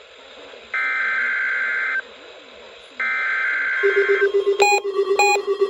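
Emergency Alert System SAME header on weather radio: three identical screeching digital data bursts, each a little over a second long with about a second's pause between them. This marks the start of an EAS required weekly test. About four seconds in, a steady alert tone begins, with a beep pulsing over it a little under twice a second.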